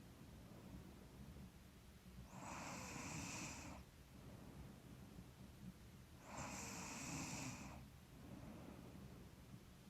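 A sleeping woman's slow, quiet breathing with light snoring, two breaths about four seconds apart; she puts the snoring down to being a little stuffy.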